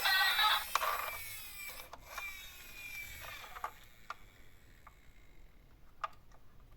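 A toy vehicle's electronic siren tune cuts off within the first second. Then come scattered light clicks and rattles of small plastic toy cars, about one a second, getting fainter.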